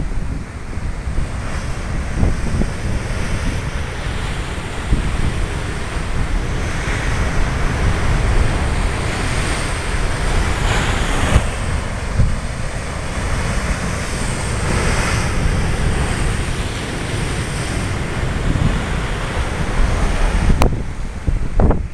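Ocean surf breaking on the shore, with strong wind buffeting the microphone in a steady low rumble; the hiss of the surf swells up several times as waves break.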